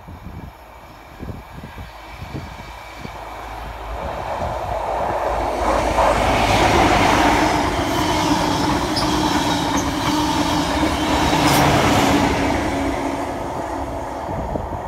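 Passenger train approaching, passing close by at speed and receding. The rush and rumble of the coaches over the rails builds from about four seconds in, is loudest for about six seconds with a few sharp clicks of wheels over the rails, then fades.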